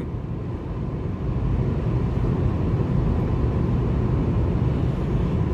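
Steady low rumble of road and engine noise inside the cabin of a Volvo S60 T3 with a 1.5-litre petrol engine and automatic gearbox, cruising at about 100 km/h on a motorway.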